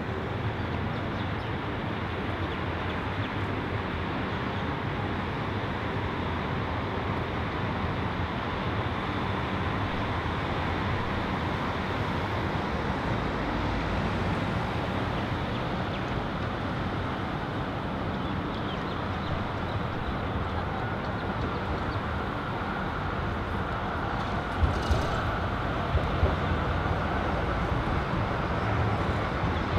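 Steady traffic noise from electric trams and cars running along a busy city road, with a few sharp clicks near the end.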